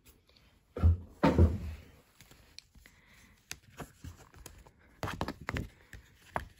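Cardboard gift box and paper card being handled. Two soft knocks come about a second in, followed by scattered light taps and paper rustles, with a quick run of taps near the end.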